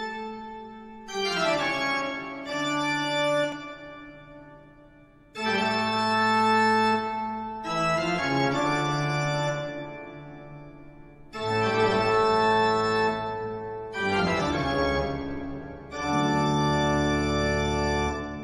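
Background music on an organ-like keyboard: held chords, a new chord struck every few seconds.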